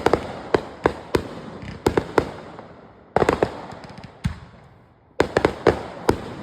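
Backyard consumer fireworks going off: a run of sharp bangs and crackles, with a fresh dense volley about three seconds in and another about five seconds in, each dying away over a couple of seconds.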